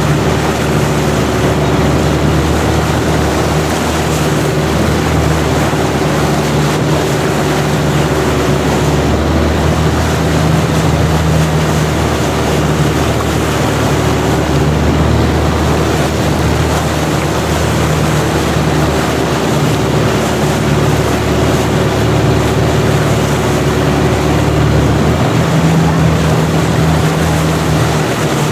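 Long-tail boat's engine running loud and steady at cruising speed, with the rush of water and wind beneath it.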